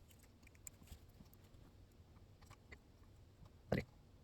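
Faint small clicks and taps of hands handling a small XLR connector and its wires, with one louder knock near the end.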